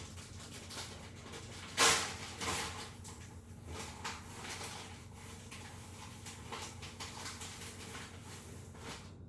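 Kitchen handling sounds: scattered clicks, knocks and rustles of items being moved on a counter, with one sharp knock about two seconds in and a smaller one just after it.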